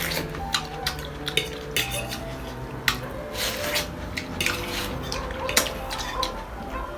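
Cutlery clinking and scraping against plates and bowls while eating, a series of sharp clicks with a few longer scrapes.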